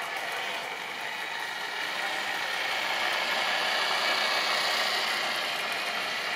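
OO gauge model train running past: the locomotive's electric motor whirring and the wagon wheels rattling along the track, growing louder as the train of tank wagons passes close, loudest about four to five seconds in.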